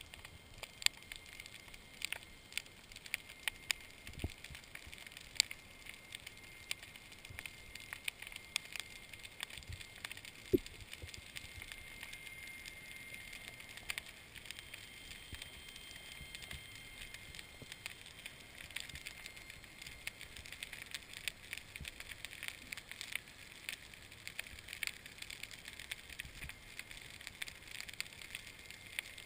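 Underwater ambience: a continuous crackle of scattered sharp clicks, typical of snapping shrimp on a rocky reef, with a few louder clicks standing out and a faint steady high whine underneath.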